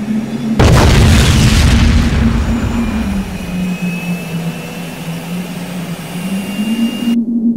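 Cartoon fight sound effects: a steady low drone, with a loud blast about half a second in that dies away over a second or so. The sound cuts off abruptly shortly before the end.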